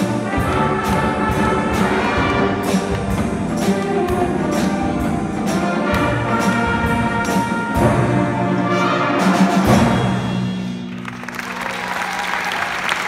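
Concert band of brass and woodwinds with percussion playing to a steady beat, closing on a final accented stroke and a held chord about ten seconds in. Audience applause rises over the held chord near the end.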